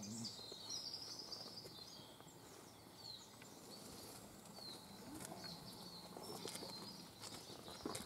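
Small woodland birds calling: many short, high chirps that slide down in pitch, repeated throughout, with a brief burst of twittering in the first second or so.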